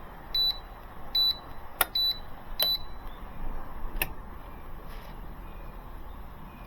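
Short high electronic beeps, about five in the first three seconds, with a few sharp clicks between them. They come from battery test gear as a resistive load test is run on a weak 12 V battery hooked to a jump pack.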